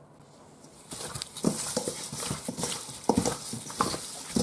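A gloved hand mixing raw, oiled chicken wings in a stainless steel bowl: irregular wet squishing and slapping of the meat, with knocks against the bowl, starting about a second in.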